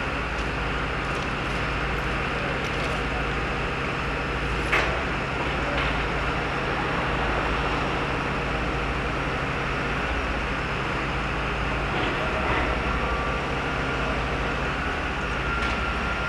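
Kirow railway crane's diesel engine running steadily while its jib lifts a track panel, with a single sharp knock about five seconds in.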